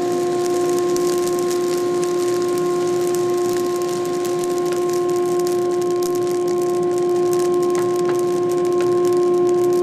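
Coffee roaster's motor and fan with a steady, even hum, while freshly roasted beans tumble into the cooling tray and are stirred, giving many fine crackles as the beans keep snapping from the second crack.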